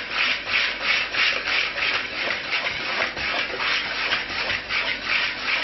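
Wire balloon whisk scraping round and round through dry flour in a mixing bowl, a rhythmic rubbing hiss of about three strokes a second, as the flours and bicarbonate soda are blended.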